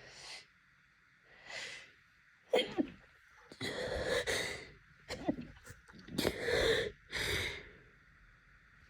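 An allergic sneeze fit: a run of sharp, gasping breaths and sneeze-like bursts, a few spaced out at first, then louder and closer together from about three seconds in.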